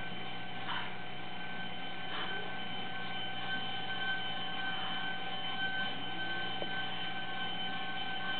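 A steady electrical hum with a constant high-pitched whine over it, unchanging throughout.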